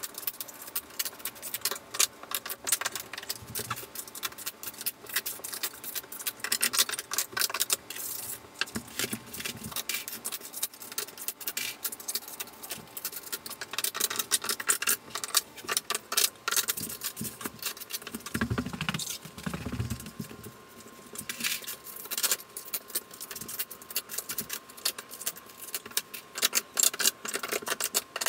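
Sped-up clicking and clattering of plastic T-Lock tile-leveling base plates and wedges being set and pushed in between porcelain floor tiles: a dense, rapid run of small plastic clicks and taps with no pause.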